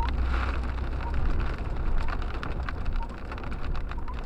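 Hail and rain drumming on a car's body and windshield, heard from inside the cabin as a dense patter of small ticks over a low engine and road rumble. Muddy water from a puddle splashes across the windshield in the first second.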